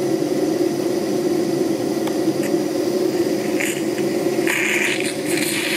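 Steam hissing in short spurts as the steam valve to a small model Southworth duplex boiler feed pump is opened to start it, beginning about three and a half seconds in and growing from about four and a half seconds. A steady low hum runs underneath.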